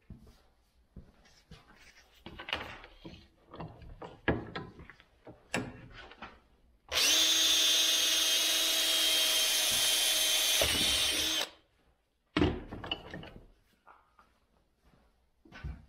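Cordless drill running steadily for about four and a half seconds, boring a hole through a white plastic strip clamped in a bench vise, then stopping sharply. Clatter and knocks of the piece being handled and set up come before it, and a knock follows just after.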